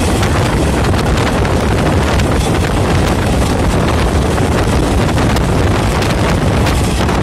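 Electric multiple-unit suburban train running at speed, a steady rumble of wheels on rail with wind rushing hard over the microphone at the open window. A second EMU runs close alongside on the next track.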